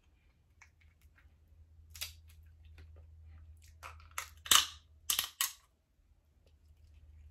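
Snow crab leg shell being cracked and snapped apart: a few scattered crunches, then a cluster of sharp cracks with the loudest about halfway through and two quick snaps just after.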